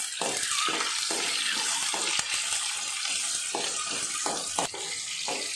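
Shallots and green chillies sizzling in hot oil in an aluminium kadai, with a steel ladle scraping and knocking against the pan in irregular strokes as they are stirred.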